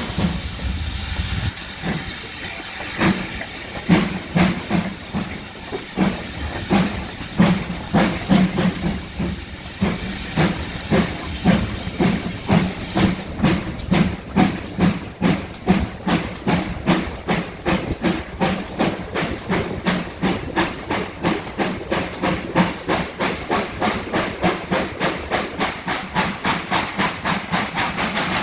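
Great Western steam locomotive pulling away, its exhaust beats quickening steadily from about one a second to two or three a second, with steam hissing.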